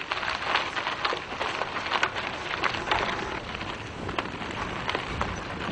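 Mountain bike tyres rolling over a gravelly dirt trail as several riders pass close by: a steady crunching hiss with many small sharp clicks of grit and stones.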